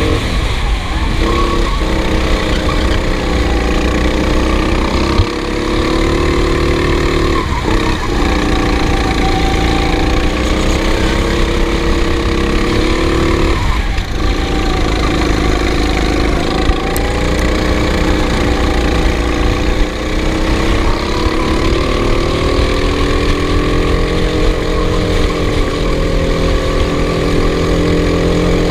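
Racing kart engine running hard, its pitch dropping sharply four times as the kart slows for corners and climbing again as it accelerates out.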